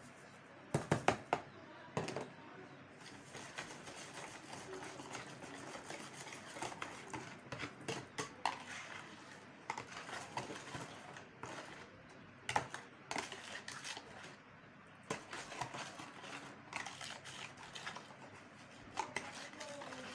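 Chocolate cake batter being stirred in a plastic mixing bowl: a utensil scraping and clicking against the bowl, with a few sharper knocks about a second in as sugar is tipped in from a plastic container.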